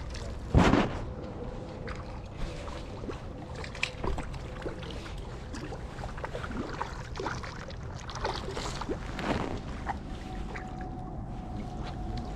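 Steady wind and water noise at the lakeshore, with a few short knocks or splashes, the loudest about half a second in.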